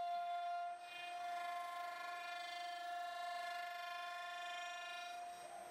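CNC router spindle whining at a steady high pitch while a 1¼-inch surface planing bit cuts a spinning wooden blank on the five-axis turning center, with a light hiss of cutting. The sound dips briefly about a second in.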